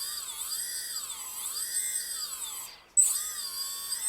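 Brushless motors of an armed multirotor whining, their pitch rising and falling as the throttle is moved. About three seconds in they wind down to a stop, then spin up again abruptly.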